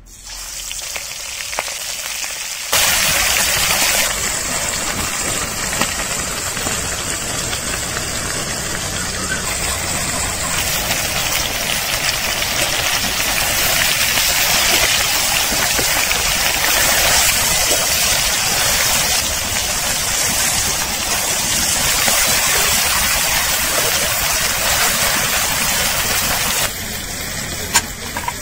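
Prawns sizzling in hot oil in a karahi: a steady, loud frying hiss that jumps up about three seconds in as they hit the oil and drops off near the end.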